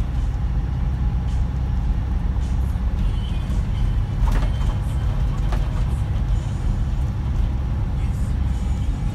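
Scania K124 12-litre straight-six diesel of an Irizar PB coach running, heard inside the passenger saloon as a steady low drone. A sharp knock from the coach body comes about four seconds in.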